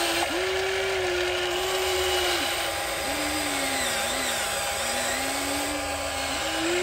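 Huina 1593 RC excavator's small electric motors whining as the boom and bucket move. The whine stops and restarts several times, dipping and sliding in pitch as different functions start and stop.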